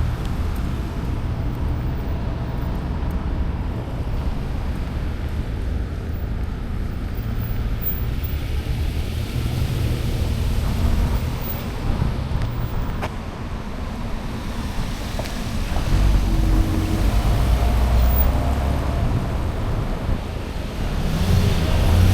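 Street traffic: cars passing on a city road, a steady low rumble. One vehicle passes louder about three-quarters of the way through.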